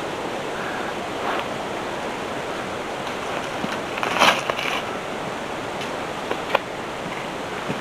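Steady rush of flowing creek water, with a few faint clicks and a short louder rustle about four seconds in.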